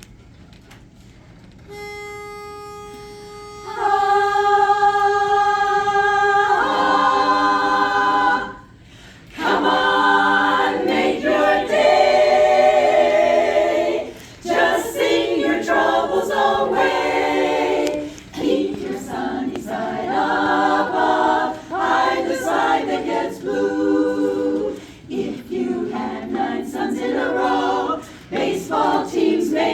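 An a cappella vocal group singing in harmony. A single steady note sounds about two seconds in, the voices come in on a held chord about four seconds in, and after a short break they sing in moving harmony for the rest of the time.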